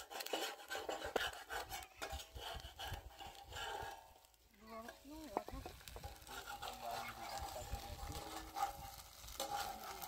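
Metal spatula scraping and tapping on a large iron griddle as an egg-topped flatbread fries on it, with faint sizzling; the bread is turned over partway through.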